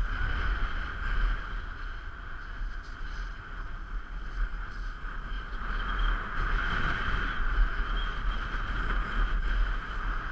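Steady hiss of skis or a snowboard sliding over groomed snow during a run, with low wind rumble on the camera microphone.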